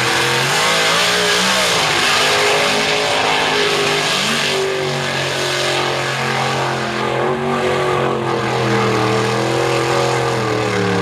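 Big-block Chevrolet V8 in a Jeep mud truck running hard through a mud pit, the engine note rising and falling as the revs climb and drop. A dense hiss runs under the engine.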